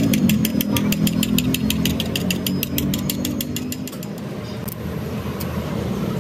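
Rapid, even metallic tapping on a steel crankshaft, about six light taps a second, stopping a little past halfway, over a low engine hum that fades.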